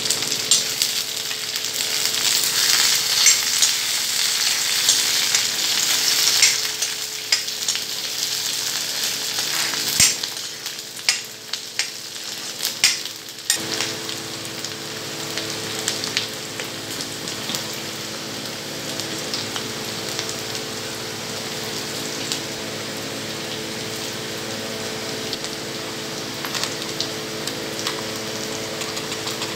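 Curry leaves, onions and chillies sizzling in hot oil in a kadai, a tempering (tadka), stirred with a steel ladle. The sizzle is loudest in the first few seconds. A few sharp ladle knocks and scrapes come around the middle, then the frying settles into a quieter, steadier sizzle.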